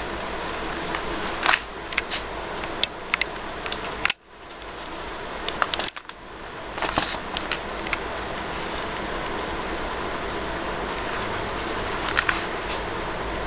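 Steady hiss of room noise picked up by a camera's built-in microphone, with scattered sharp clicks and taps from the camera being handled. The sound drops out briefly about four seconds in and again about six seconds in.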